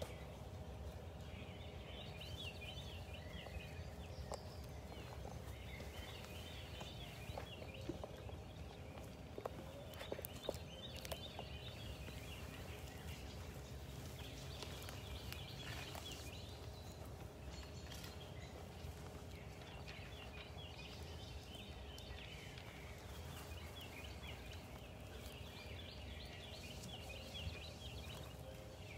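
Birds singing faintly, short chirping phrases repeated again and again, over a low steady background hum.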